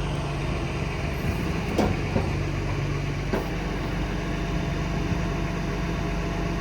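Cummins 8.3 ISC inline-six diesel of a Peterbilt 335 idling steadily, with a few light clicks about two and three seconds in.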